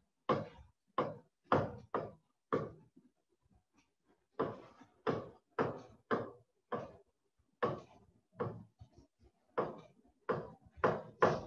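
A stylus tapping on a smart-board screen while numbers are written by hand. The taps are short and hard, about two a second, with a pause about three seconds in.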